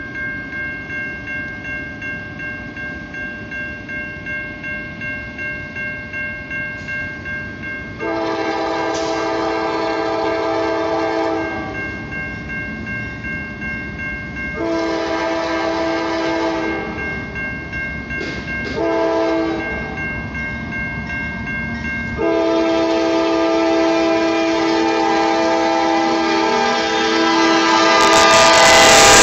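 A Norfolk Southern diesel locomotive's horn sounds the grade-crossing signal: two long blasts, a short one and a final long one, over a railroad crossing bell ringing about twice a second. Near the end a loud rush as the locomotives reach the crossing.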